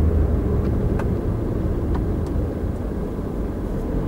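Steady engine and road noise of a Volkswagen car, heard from inside the cabin while it is driven. The low engine hum eases about a second in, and there are a couple of faint clicks.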